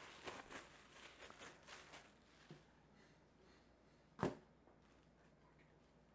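Faint crinkling of plastic wrap being pulled off a ball of pie crust dough during the first two seconds, then one short thump a little past four seconds in.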